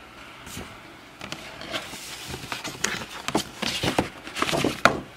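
Paper gift bag and tissue paper rustling and crinkling as a present is pulled out: quick, irregular crackles that start about a second in and get busier toward the end.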